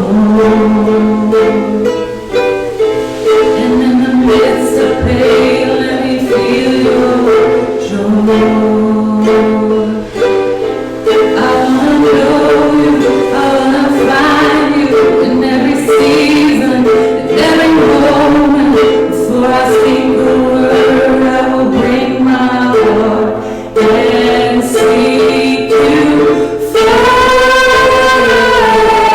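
Live church worship music: a band playing with voices singing a song.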